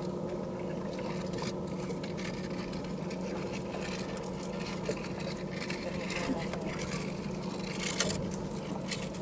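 Boat motor running with a steady, even hum, with scattered light clicks and a sharper click about eight seconds in.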